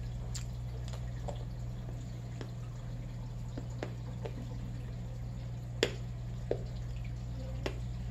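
Saltwater aquarium's water system: a steady low pump hum with irregular drips and small splashes of water, the loudest about six seconds in.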